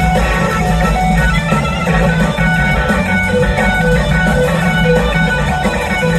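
Live band playing loud: an electric guitar plays a lead line of held notes over a full band with two drum kits.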